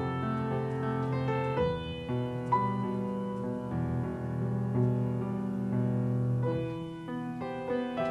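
Grand piano playing held chords over sustained low notes, with quicker notes at the start and again near the end.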